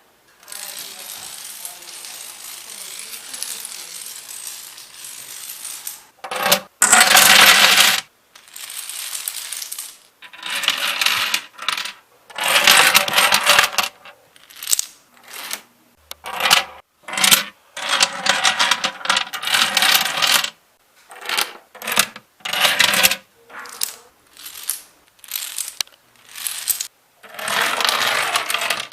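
Chains of dominoes toppling, a fast rattling clatter of tile striking tile. A quieter steady run comes first, then a string of short, louder runs, each starting and stopping abruptly.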